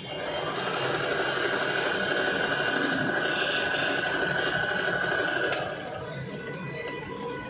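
Norio Yamazaki AG-002N domestic electric sewing machine running steadily while sewing a decorative stitch pattern, with a steady motor whine under the needle's rapid chatter; it stops about five and a half seconds in.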